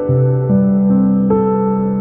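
Background piano instrumental: slow, gentle music with sustained notes, a new note struck about every half second over held low notes.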